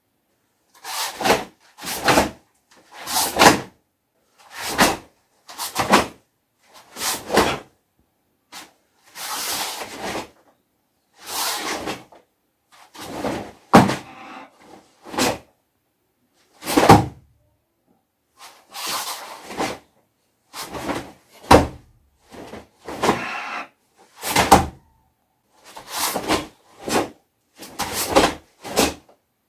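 A karate practitioner performing a Goju-ryu kata: a run of short, sudden swishing bursts, about one a second, from sharp forceful breaths and the gi snapping with each technique. A few bursts are longer hisses of a second or more.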